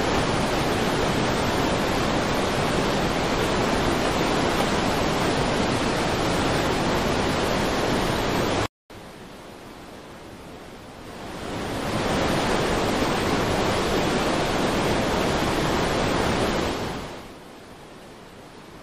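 Floodwater rushing and heavy rain: a steady, loud rush of noise. It cuts out for an instant about nine seconds in, comes back quieter, swells up again a couple of seconds later and drops away near the end.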